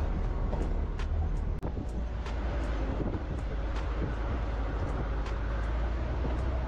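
A vehicle driving slowly over a rough gravel road: a steady low engine and road rumble with scattered sharp clicks and knocks from the bumpy surface. The sound cuts out for an instant about a second and a half in.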